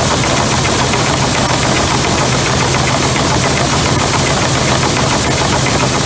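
Tractor engine running at working throttle, driving a grain auger that is carrying wheat into a bin: a loud, steady din with a fine, rapid clatter.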